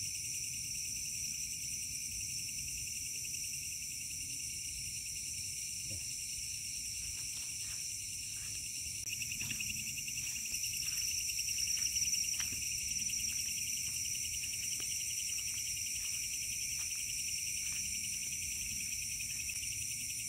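Night chorus of crickets and other insects, a steady high-pitched ringing. A pulsing trill grows louder about nine seconds in, with small scattered clicks underneath.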